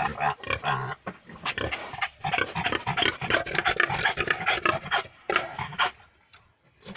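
An animal snuffling and panting in quick, noisy breaths that stop about a second before the end.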